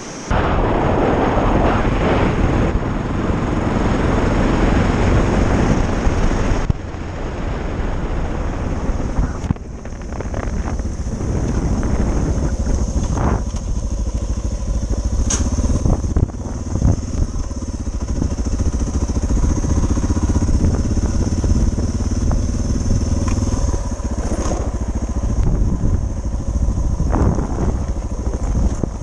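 Suzuki DR650 single-cylinder four-stroke engine running as the motorcycle rides slowly over gravel, heard from a helmet-mounted camera. A rushing noise is heaviest for the first six or seven seconds, then eases, with a few sharp knocks along the way.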